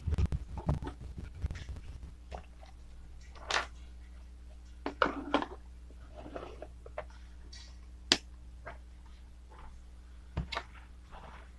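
Handling noise as a plastic bottle battery and a multimeter are moved and set down on a table: a rumble of handling in the first second or so, then scattered knocks, clicks and rustles, the sharpest about eight seconds in, over a faint steady low hum.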